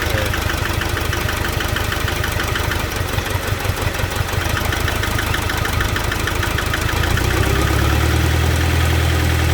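Nissan NP300 Hardbody engine idling unevenly with a misfire. About seven seconds in, the low engine drone becomes stronger and steadier.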